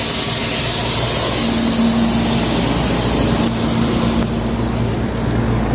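R134a refrigerant gas hissing out of the fridge's refrigeration line, showing that the system still holds its charge, then cut off about four seconds in; a steady hum runs underneath.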